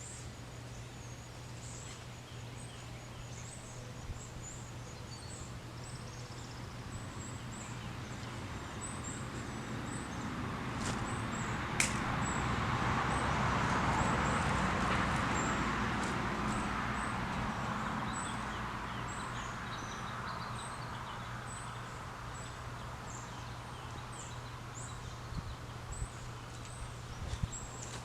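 Birds chirp throughout over a steady low engine hum. The engine noise swells over several seconds to a peak about halfway through, then fades again, as a machine passes by. There is a single sharp click near the loudest point.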